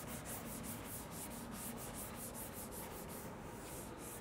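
Board eraser wiping a chalkboard in quick back-and-forth strokes, about four a second, a faint steady rubbing.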